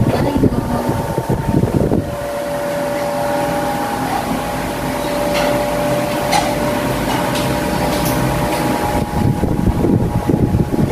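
Electric fan running: a steady whirring hum, with air rushing over the microphone for the first couple of seconds and again near the end.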